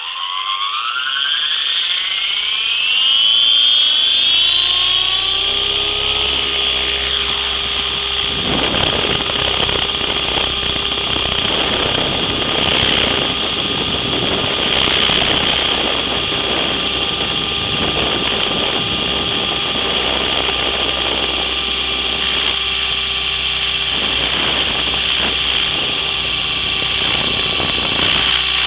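Radio-controlled model helicopter heard from its own on-board camera: the motor and rotor spool up with a rising whine over the first several seconds, then run at a steady high whine in flight. A rougher rushing noise joins in after several seconds.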